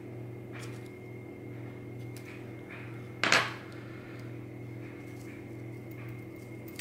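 One sharp metallic clack about three seconds in, as metal tweezers are set down on a wooden tabletop. A few faint clicks come from handling the small brass lock cylinder, over a steady low hum.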